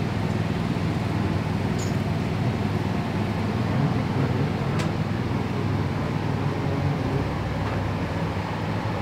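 Steady low engine rumble, unbroken for the whole stretch.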